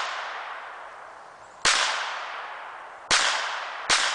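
Beretta .25-caliber semi-automatic pistol firing three shots, about a second and a half apart and then closer together, each crack trailing off in a long fading echo.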